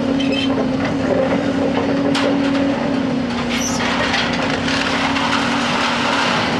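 Hyundai Robex 300NLC-9A excavator's diesel engine and hydraulics running with a steady hum, while its sorting grab drops scrap metal into a steel container: sharp metallic clanks and crashes right at the start, about two seconds in and about three and a half seconds in.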